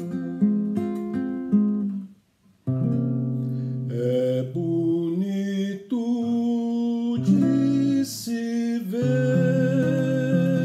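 Acoustic guitar being strummed and plucked while a man sings over it. The music breaks off briefly about two seconds in, then starts again.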